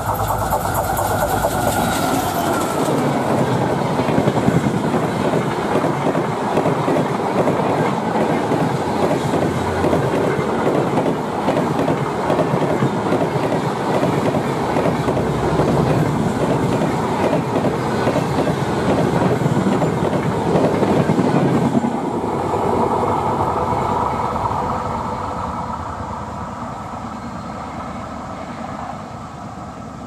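EMD WDG4D diesel locomotive and its passenger express passing at speed, with steady, loud wheel clatter over the rails as the coaches run by. The sound fades away over the last several seconds as the train recedes.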